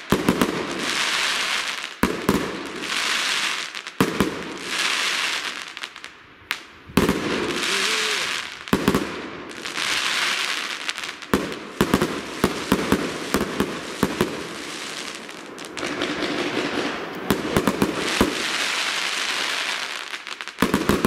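Aerial fireworks bursting in a continuous display: sharp bangs mixed with hissing, crackling spells, a new burst about every two seconds. The bangs come thicker near the end.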